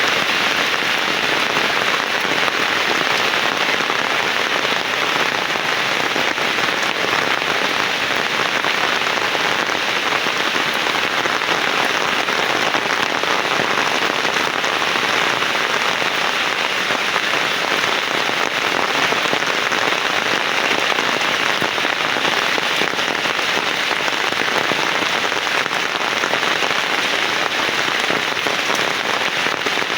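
Heavy rain falling in a steady, dense hiss with no breaks or thunder.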